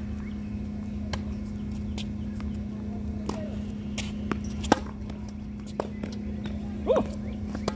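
Tennis balls being struck by racquets and bouncing on a hard court during a rally. There are about eight sharp pops at irregular intervals, the loudest about halfway through, over a steady low hum.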